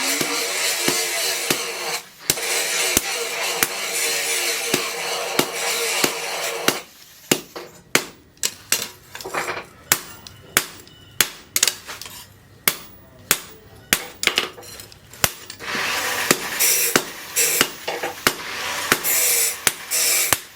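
Hammer blows on steel as the tractor-disc cleaver blank is forged: a run of sharp strikes, about two a second, through the middle. Before and after the strikes comes a steady harsh noise.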